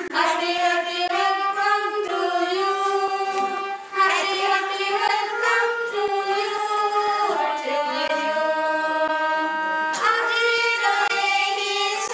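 High voices singing a melody with long held notes, in phrases that restart about four and ten seconds in.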